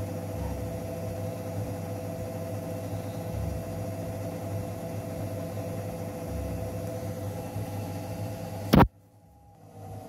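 A steady machine hum with two fixed tones over a low rumble. Near the end a single sharp knock, after which the hum cuts out for about a second before a hum comes back.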